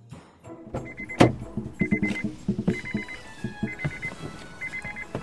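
Honda car's door-open warning chime: a short trilling beep that repeats about once a second, with a sharp click about a second in.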